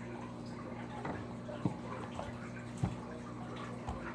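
Steady background hum with three short, soft knocks, as plastic slime containers are picked up and handled.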